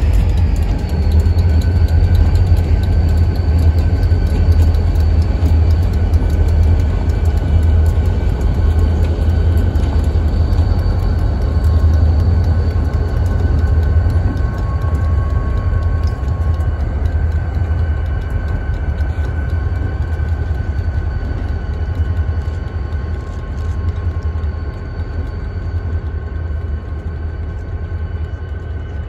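Several diesel freight locomotives running under power as they pass and pull away: a heavy, steady low engine rumble with thin, steady high-pitched tones above it, slowly fading as the train moves off.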